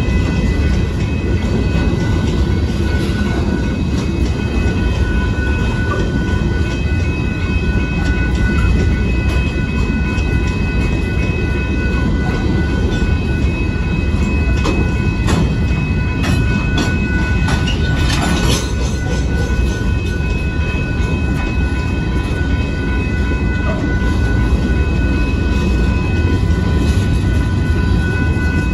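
Loaded covered hopper cars of a freight train rolling slowly past, with a steady low rumble and the clatter of wheels over the rails. A steady high-pitched ringing tone runs over it. The clatter grows sharper and briefly louder a little past the middle.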